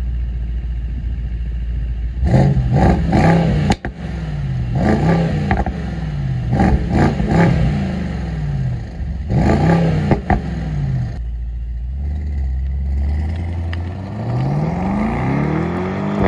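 Mercedes-AMG SL 63's twin-turbo V8 idling, then revved in a series of quick blips that rise and fall, with a couple of sharp exhaust cracks among them. Near the end it pulls away, its pitch rising steadily.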